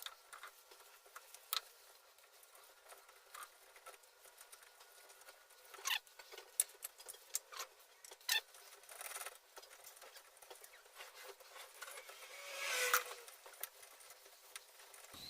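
Faint scattered clicks and light scrapes of a hand tap and tap wrench cutting threads in freshly drilled holes, with a longer scraping stretch near the end.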